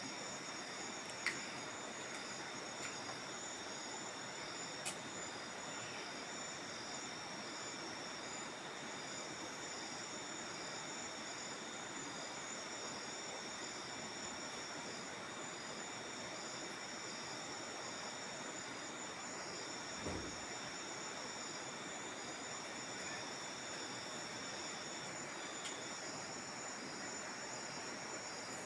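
Insects, crickets by the sound of it, chirring steadily in several high-pitched bands over a faint background hiss. A few isolated sharp clicks, and a single dull thump about twenty seconds in.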